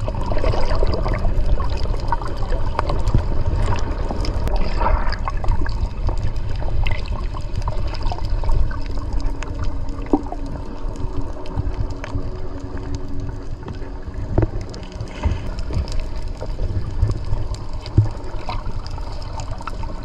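Sea water splashing and gurgling over a steady low rumble, with scattered small splashes and knocks.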